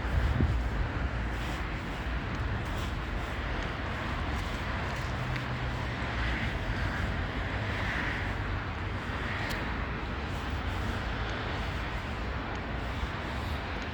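City street ambience: steady traffic noise from a busy downtown street, with a low rumble that is louder for the first second and then settles.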